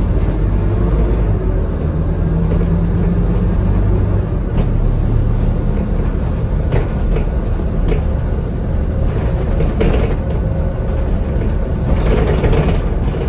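Interior sound of a Scania N230UD double-decker bus under way: the diesel engine runs with a steady low drone that shifts a little in pitch, with road noise and short rattles from the body and fittings now and then.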